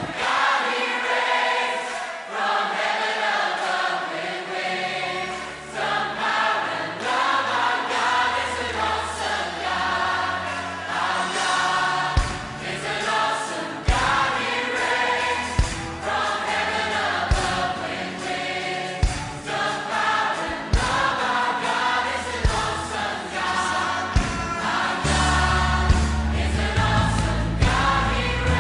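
Background music: a choir singing over a backing track. A bass line comes in after a few seconds, a regular beat about every second and a half joins halfway through, and the low end fills out near the end.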